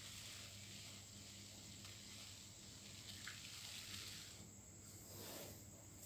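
Near silence: faint room tone with a low steady hum and hiss.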